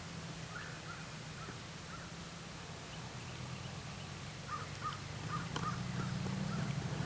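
Faint short bird calls, a few around the first second and another cluster about four to five seconds in, over a steady low hum.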